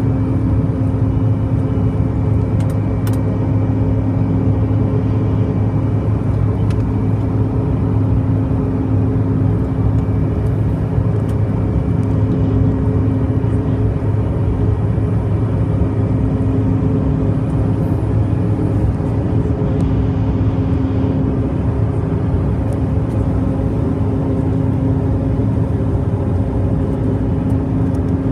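Cabin noise of a Bombardier CRJ-700 regional jet climbing after takeoff: its two rear-mounted General Electric CF34 turbofans and the airflow make a steady drone with a few steady hum tones, the low hum loudest.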